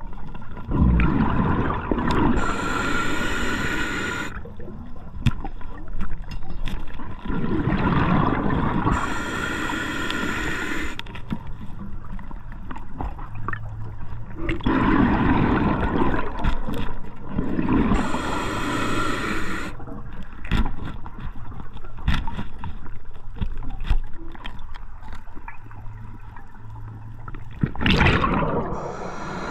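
Scuba diver breathing through a regulator underwater: a hissing inhale alternating with a bubbling rush of exhaled air, about four breaths in slow, even rhythm.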